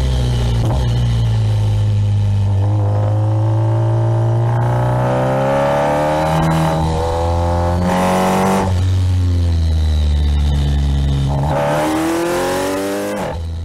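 Kawasaki Ninja 1000SX inline-four engine heard from on board, accelerating hard: its pitch climbs repeatedly, broken by short gaps at each upshift.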